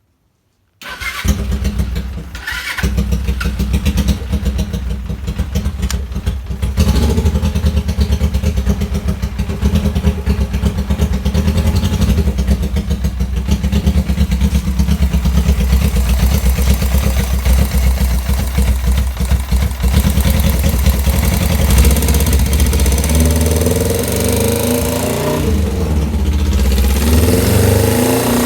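Twin-cylinder, twin-carburettor motorcycle engine starting about a second in, then running at idle and being revved up and down several times near the end. It makes a weird noise that the owner cannot explain, even with new spark plugs, clean carbs and the valves freshly adjusted.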